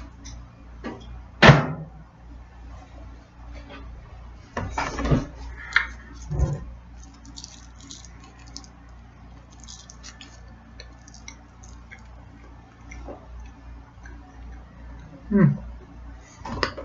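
A person eating a microwaved breaded chicken sandwich: scattered mouth clicks, bites and knocks of handling it, with a few louder bumps, over a low steady hum.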